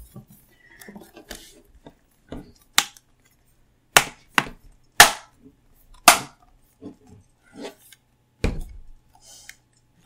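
Bottom cover of a Dell Inspiron 13 5000 2-in-1 laptop being pushed back on, its retaining clips snapping into place. Sharp separate clicks, about six loud ones between about three and nine seconds in, with fainter ticks between them.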